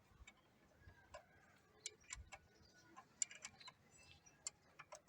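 Near silence with scattered faint, irregular clicks and ticks.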